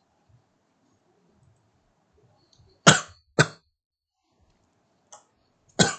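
A man coughing: two coughs in quick succession about three seconds in, then another near the end.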